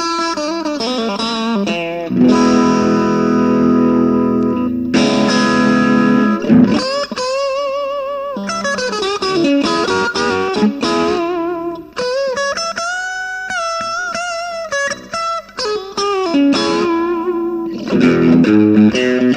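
Electric guitar on a split humbucker pickup, played through an ARP Baby Crunch pedal for a crunchy overdriven tone. A chord rings out for a few seconds, then single-note lead lines follow, with wide vibrato on held notes and quick runs.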